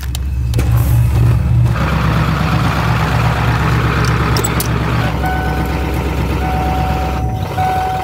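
A 1996 Ford F350's 7.3 L Powerstroke diesel idling steadily at a raised idle, the speed its owner is about to turn down to stock, with a rushing hiss over it in the middle seconds. About five seconds in a thin steady electronic tone starts, and the engine's low hum drops away near the end.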